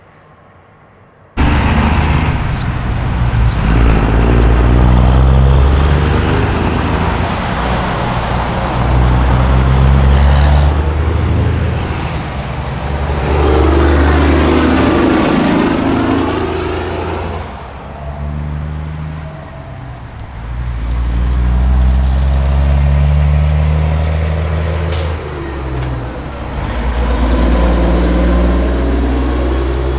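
Diesel semi-truck engines running as several tractor-trailers pull slowly past one after another, each swelling and fading as it goes by, with a thin high whistle gliding up and down. The sound starts suddenly about a second and a half in.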